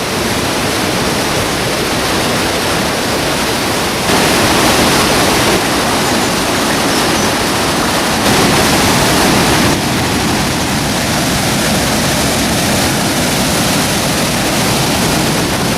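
Waterfall: a loud, steady rush of falling water, swelling a little louder twice for a second or so.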